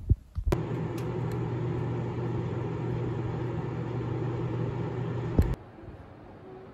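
3-in-1 combination microwave oven running with a steady low hum, which stops abruptly with a click near the end.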